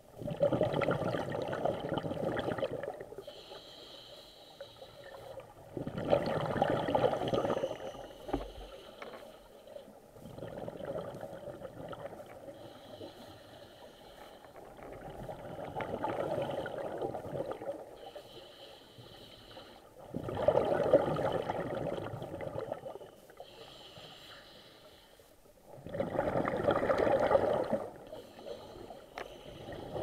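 Scuba diver breathing through a regulator underwater: long bubbling exhalations about every five seconds, some louder than others, alternating with a short hissing inhale through the regulator.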